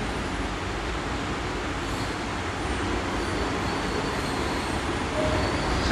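Steady, even rushing background noise with no voice, like a room's air conditioning or fan heard through the recitation microphone.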